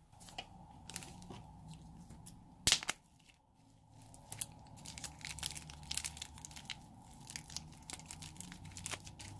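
Rubber balloon filled with clay being handled, torn open and peeled off the clay, making close crackling and tearing, with one loud sharp snap about two and a half seconds in.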